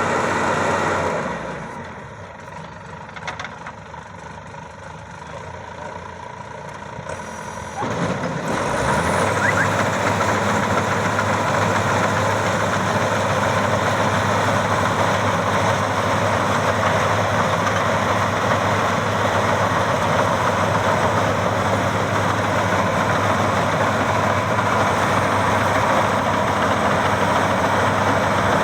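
Maxxi Bimo 102 combine harvester engine running steadily. It is quieter for several seconds early on, then louder again from about eight seconds in.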